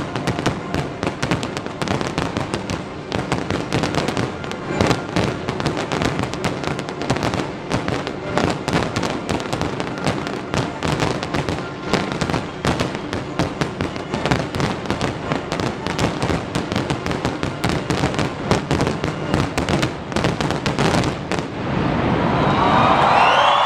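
Large aerial fireworks display crackling and banging in dense, rapid salvos of many bursts. About two seconds before the end the bursts stop and a crowd breaks into louder cheering.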